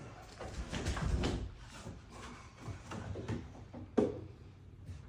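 Bookcase knocking and scraping as it is lifted and shifted into its opening, with scattered thuds and one sharp knock about four seconds in.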